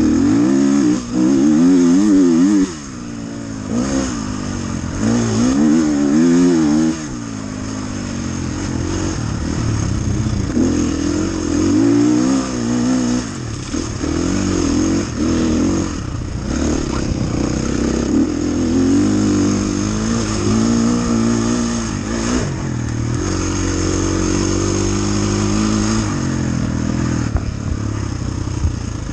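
Off-road dirt bike engine, heard close up from on the bike, revving up and down as the rider works the throttle along a rough course. The pitch rises and falls every second or two.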